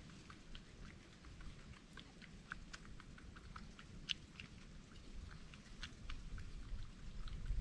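A small wild animal chewing and crunching food, many quick irregular crunches close to the microphone, with a low rumble growing louder from about two-thirds of the way in.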